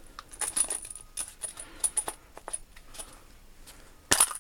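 Small steel tools clinking and rattling against each other and the metal toolbox drawer as they are picked through, a scatter of light metallic clicks with a sharper knock about four seconds in.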